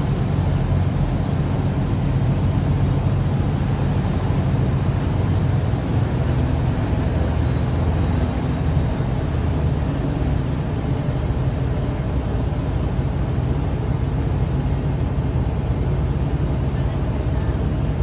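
Steady low drone of a river ferry's engine, with a constant rushing noise over it.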